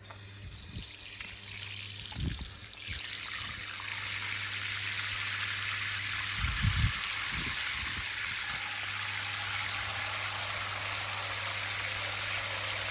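Water from a garden hose running into a pottery bird bath: a steady splashing hiss that starts as the water is turned on and fills out over the first few seconds, with a couple of brief low bumps.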